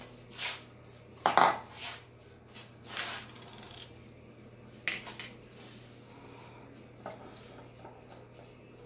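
Kitchen things handled on a granite countertop: a mixing bowl set down with a clatter about a second in, then bottles and a measuring cup picked up and put down, with a few lighter knocks and clicks.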